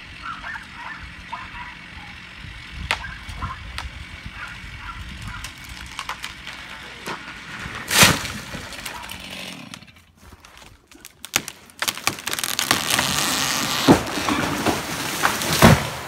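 Felled trees coming down: a heavy crash about halfway through, then after a short lull a dense crackling rush of breaking branches with further thuds near the end.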